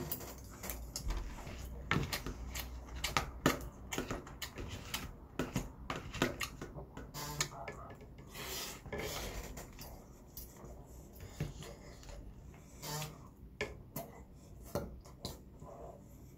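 Eating sounds: stainless metal chopsticks and a spoon clicking against bowls, many short scattered clicks, with soft chewing.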